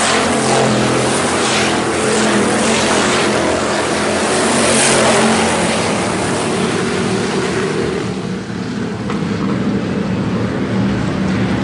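A field of IMCA Hobby Stock race cars running at racing speed past the fence on a dirt oval, several engines at once with a dense rush of noise. The higher part of the noise thins out about eight seconds in as the pack moves away.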